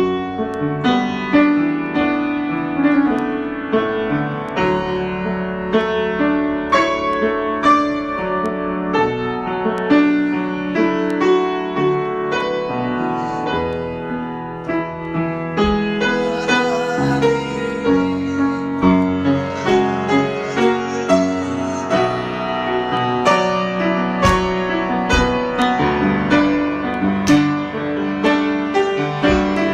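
Solo piano improvisation: a steady stream of struck notes and chords that ring on and overlap.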